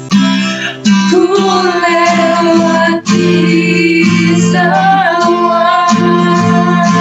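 A woman and a girl singing together in held, wavering notes, accompanied by an acoustic guitar, with short breaks between phrases at the start and about three seconds in.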